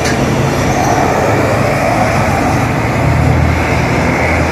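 Heavy diesel bus passing close by with a loud, steady low engine rumble.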